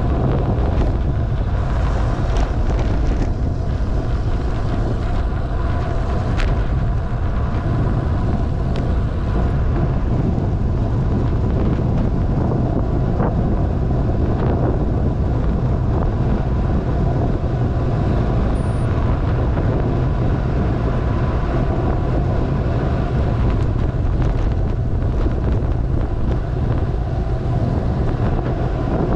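Heavy, steady wind buffeting on the camera microphone, caused by the air rushing past on a fast downhill bicycle ride, with a constant low rumble.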